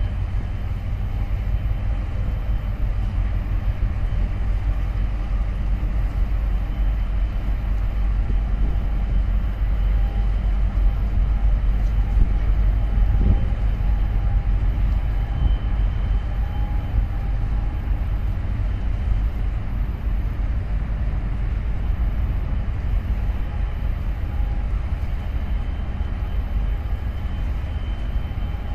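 Steady low engine rumble of a boat running on the water, with no breaks or changes.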